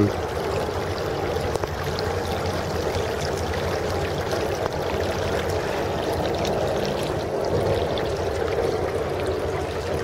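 Steady rushing of water on a stony beach.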